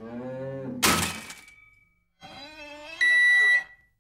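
Wordless cartoon voice sounds, a sharp thunk about a second in, more wavering voice sounds, then a long, steady electronic beep from a microwave oven near the end.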